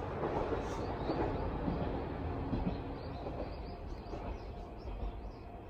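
Watarase Keikoku Railway diesel railcar running past and moving away, its low rumble and wheel-on-rail noise fading steadily.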